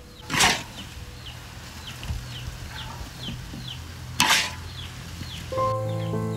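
Two loud, short swishes, about half a second in and again about four seconds in, over a bird's steady run of short, falling chirps; music with held notes comes in near the end.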